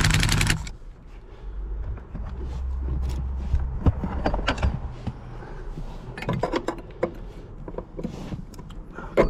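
A cordless impact driver hammers rapidly for about half a second as it tightens a car battery terminal, then stops. Scattered clicks and light metal clanks follow as the metal battery hold-down brace is handled and set in place.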